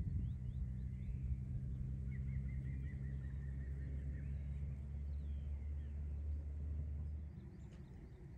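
A small bird sings a fast trill of repeated high notes, about two seconds long, starting about two seconds in. Under it runs a steady low rumble that stops shortly before the end.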